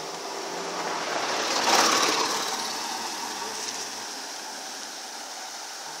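A road vehicle passing by: its engine and tyre noise swells up, peaks about two seconds in, then fades away.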